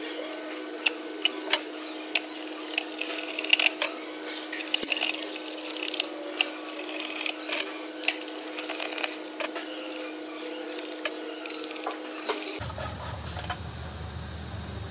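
Irregular metallic clicks and taps of a socket ratchet and pan bolts as an automatic transmission oil pan is bolted back on, over a steady hum. Near the end the hum stops and a fuller background rumble comes in.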